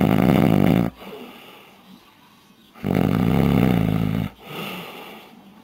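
A man snoring heavily in his sleep. One loud snore ends about a second in, and another starts about three seconds in and lasts about a second and a half. A softer breath follows it.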